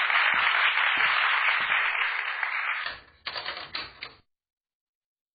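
Audience applause, a dense patter of many hands clapping, that dies down about three seconds in and stops about a second later.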